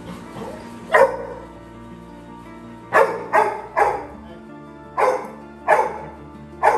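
Labrador retriever puppy barking: seven short, sharp barks. One comes about a second in, a quick run of three follows near the middle, and three more are spread toward the end, over steady background music.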